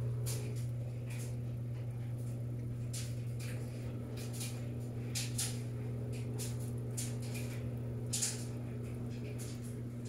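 Panasonic top-load washing machine running in the wash stage of its quick cycle: a steady low hum, with irregular small splashes and trickles of water in the filled tub.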